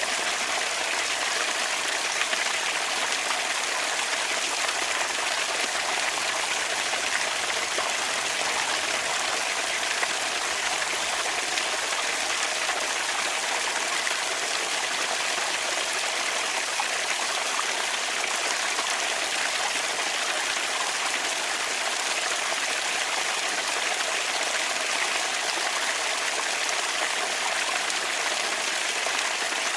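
Bamboo water fountain: water running and trickling steadily, an even, unbroken flow.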